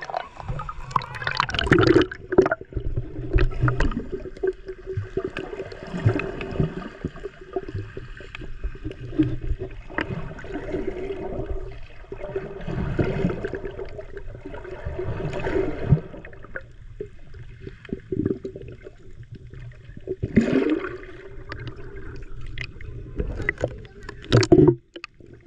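Water sloshing and gurgling around a swimmer's submerged action camera, muffled as if heard from underwater, with uneven surges and sharp splashes.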